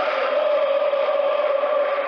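Many voices chanting together in one long, slowly wavering held tone, steady throughout.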